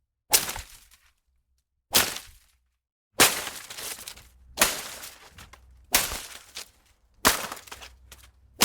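Foliage being hit and whipped, such as leaves, ferns or undergrowth: a series of sharp strikes about one and a half seconds apart, each trailing off over about a second.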